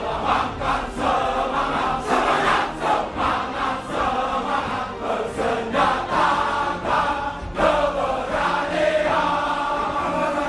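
A choir singing a slow, chant-like melody with sustained voices, running continuously as background music.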